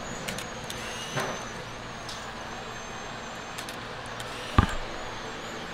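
Steady background hum with a faint click about a second in and one sharp knock about four and a half seconds in, the loudest thing heard.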